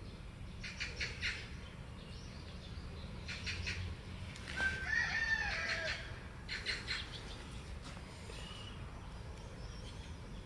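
Birds calling: short runs of rapid chirps every few seconds, and one louder call with a sliding pitch about five seconds in.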